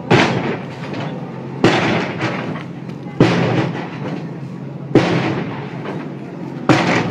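Backhoe loader's bucket striking a building, five heavy blows about every second and a half, each followed by a crash of falling debris, over the steady running of its diesel engine.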